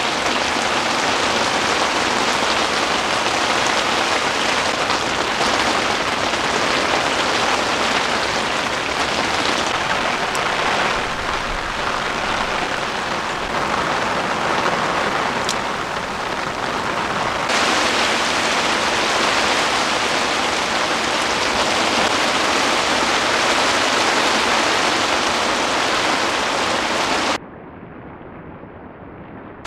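Heavy rain pouring steadily on a tent, a dense even hiss. Near the end it cuts suddenly to a much quieter, muffled version of the rain.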